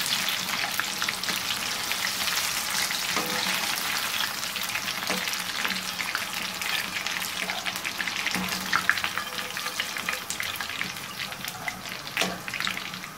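Pakoras deep-frying in hot oil: steady sizzling and crackling, with a few short knocks of a metal skimmer against the pan as they are lifted out.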